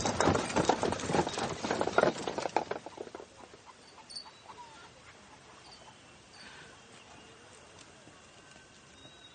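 A rapid run of clattering knocks for about the first three seconds, then fading to a quiet outdoor background with a few faint chirps.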